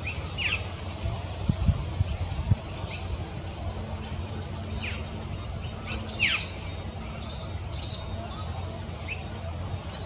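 Small birds calling in the background: a scattering of short chirps, several sliding down in pitch, over a steady low rumble. A few low knocks come about two seconds in.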